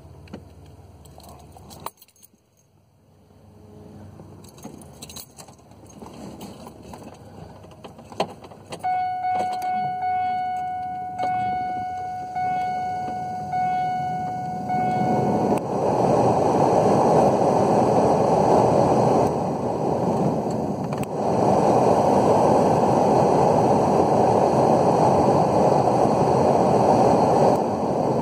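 Rebuilt heater blower motor in a 2002 Pontiac Grand Prix running with a steady rush of air through the dash vents, getting louder and settling into a loud even rush at high speed, with no grumbling now that balled-up insulation has been cleared from the fan. Before it, a few clicks and key rattles, and for several seconds a steady electronic tone.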